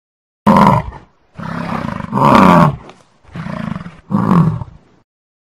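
Bison bellowing: three loud calls, the first short and abrupt, the next two longer and falling in pitch.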